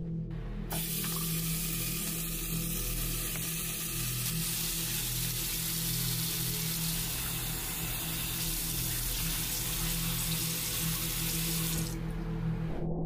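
A steady rushing hiss, much like a running tap, cuts in abruptly and stops abruptly about eleven seconds later, over a low, sustained ambient music drone.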